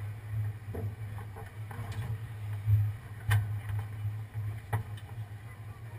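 1993 Ford F-150 Lightning pickup's V8 running with a steady low drone, broken by a few sharp knocks, the clearest about three and five seconds in.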